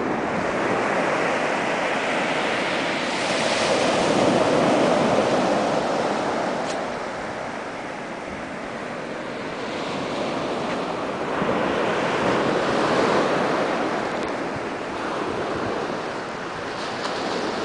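Ocean surf washing onto a sandy beach, a steady rush that swells and fades in slow waves, with wind in the background.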